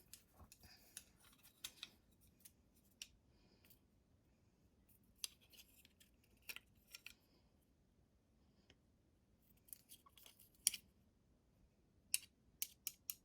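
Near silence with faint, scattered light clicks and taps of chopsticks being handled against a bowl, coming more often near the end.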